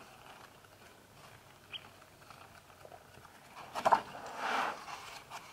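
Pages of a hardcover Bible being flipped through by hand: faint paper rustling at first, then a louder run of page rustles about four seconds in.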